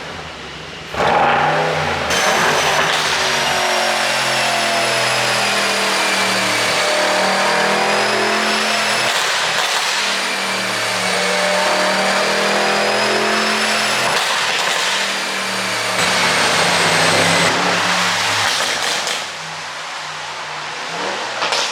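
Mercedes-AMG S63's twin-turbo 4.0-litre V8 running hard under way on a tuned ECU. The engine note steps and glides up and down through the revs, with a high whine rising and falling above it. It eases off near the end, where there is a short louder burst.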